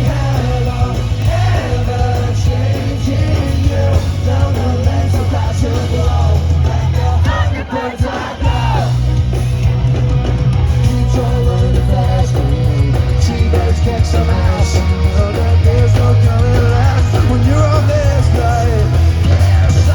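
Live pop-punk band playing loudly, with a heavy bass and drum beat under sung vocals. The full band drops out briefly about eight seconds in, then comes back.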